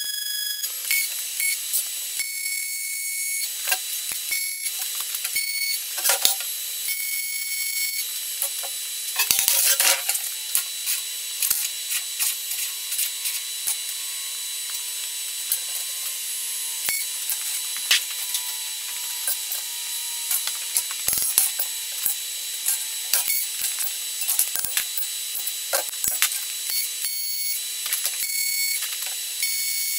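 MIG welding arc on steel box section, a dense crackling hiss that stops and restarts several times as welds are laid, with a few sharper knocks in between.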